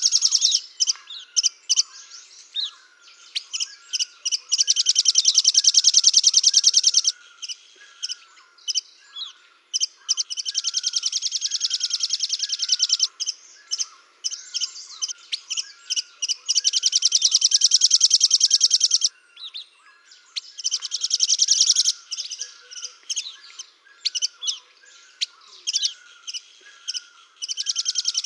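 Small songbirds singing: high, very fast trills of two to four seconds alternate with short chirps. Underneath, a softer, lower chirp repeats at an even pace, a little more than once a second.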